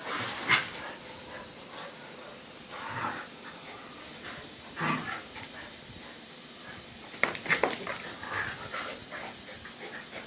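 Two dogs play-wrestling, making dog vocal noises in short bursts a few seconds apart, the loudest cluster about seven and a half seconds in.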